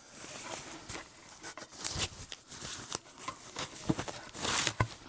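Rustling and irregular clicks and knocks of crib parts and packaging being handled and sorted, with a longer burst of rustling near the end.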